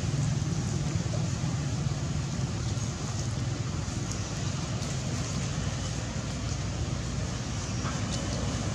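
Steady low background rumble, with a few faint ticks.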